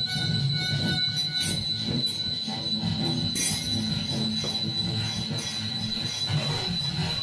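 Eerie soundtrack drone: a steady high-pitched whine held over a low, churning rumble, with a brief hiss about three and a half seconds in.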